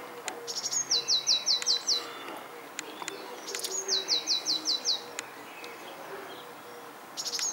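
A songbird singing: each phrase is a short buzzy start followed by a run of five or six quick whistled notes, each sliding down in pitch. There are two full phrases about three seconds apart, and a third begins near the end.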